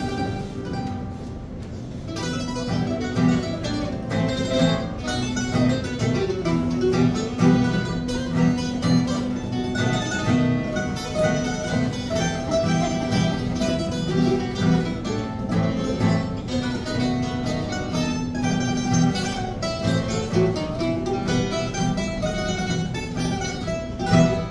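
Two acoustic guitars and a mandolin playing an Italian tune together, sparser for the first couple of seconds, then full strummed chords with a picked melody. It ends on a loud final chord just before the end.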